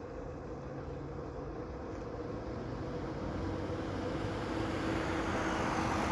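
A car approaching on the street: engine and tyre noise growing steadily louder, loudest near the end.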